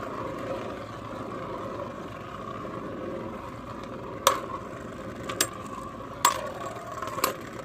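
3D-printed Beyblade spinning tops whirring and scraping steadily on a plastic stadium floor. Four sharp clacks of hard plastic on plastic come about a second apart in the second half.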